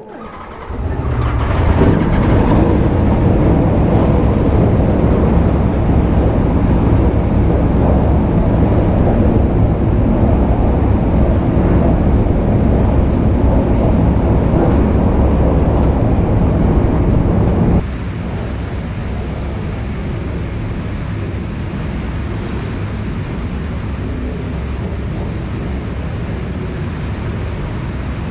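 Aprilia RSV4 RF's V4 engine running with wind rushing past while riding. The sound builds over the first two seconds and holds steady, then drops suddenly to a quieter steady level about eighteen seconds in.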